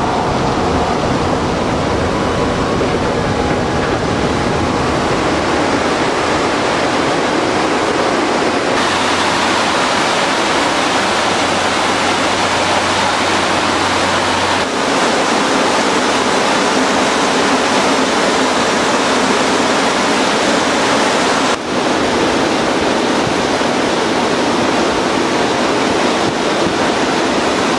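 Steady loud rush of airstream and twin turboprop engine noise inside an HC-144 Ocean Sentry's cabin with the rear cargo ramp open. Its tone shifts abruptly three times, with a low engine hum added for a few seconds about a third of the way in.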